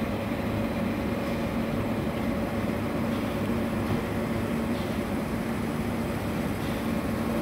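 Floating jet aerator running: a steady motor hum with a low droning tone over the even rush of churned, aerated water.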